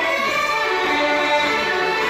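A large group of uilleann pipers playing a tune together: the chanters step through the melody over steady held drones.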